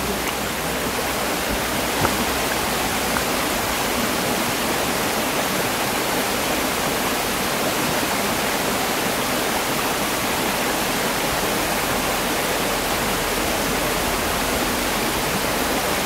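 Small stream cascading over rocks, a steady, even rush of water.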